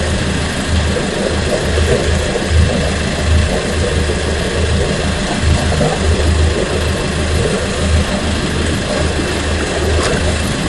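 A small fishing boat's engine running at idle under a steady rush of wind and sea, with an uneven low rumble that comes and goes.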